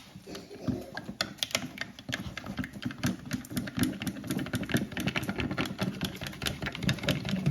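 Rapid, uneven mechanical clattering: many small clicks over a low hum, from a small mechanism worked on the mini toilet.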